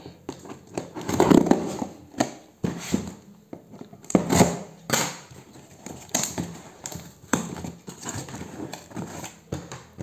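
Cardboard shipping box being opened by hand: irregular rustling, scraping and knocking as the cut flaps are pulled apart.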